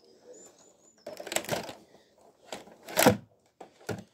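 Close handling noise: rustling and clattering knocks from someone moving right up against the microphone, in a few short bursts, the loudest about three seconds in.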